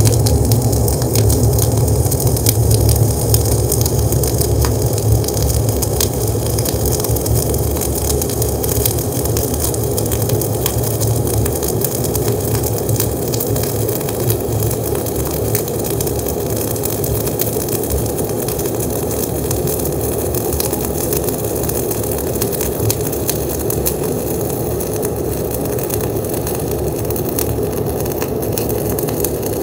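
Gas-shielded flux-cored arc welding: a cap pass with Bohler Diamondspark .045 flux-cored wire under 75/25 argon-CO2 at 24 volts and 360 wire feed speed. The arc gives a steady, continuous crackle and hiss with spatter.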